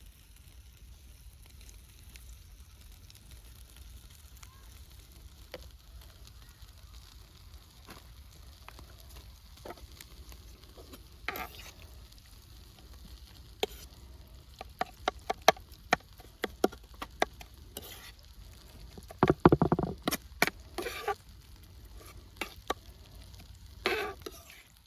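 Food being prepared by hand: from about halfway, a scatter of sharp clicks and knocks, with a brief louder rustling burst about four-fifths of the way through, over a steady low background.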